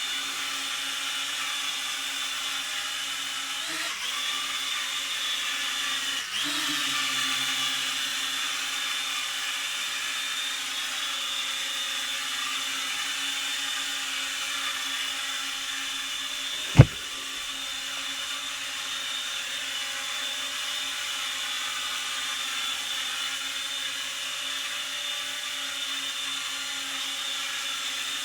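Small toy quadcopter's electric motors and propellers whirring steadily in flight, a high buzzing whine whose pitch shifts briefly about 4 and 6 seconds in. A single sharp knock comes about two-thirds of the way through.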